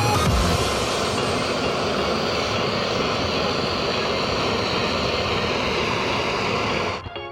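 Gas torch flame running with a steady, even rush that cuts off abruptly near the end.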